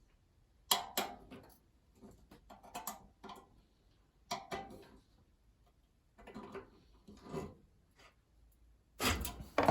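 Irregular small metallic clicks, taps and scrapes as a stuck part of a gas heater's pilot assembly is worked loose by hand.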